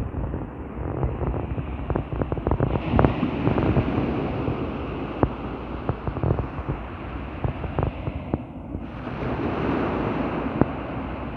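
Sea surf breaking on a beach, with strong wind buffeting and crackling on the microphone; a wave washes in loudly about nine seconds in.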